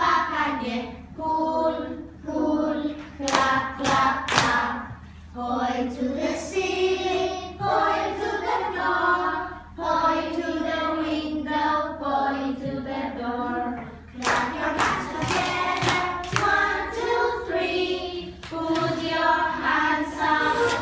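A class of young children singing a song together, clapping their hands at times, with a few claps about three seconds in and more around the middle.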